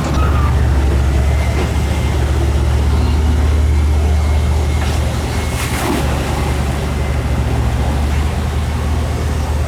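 A heavy diesel engine, the excavator's, running steadily under load with a deep, even drone. About six seconds in there is one short, sharp noise.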